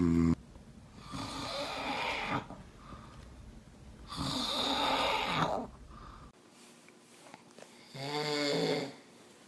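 A man snoring: two long, noisy snores about a second and four seconds in, then a shorter snore with a clear pitch near the end.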